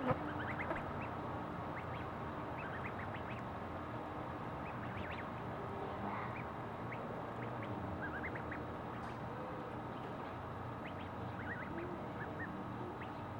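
Domestic duck calling, short high calls repeated at irregular intervals over a steady low background hum.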